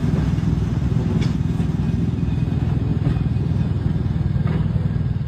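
A train running with a steady low engine rumble, with a few faint clanks.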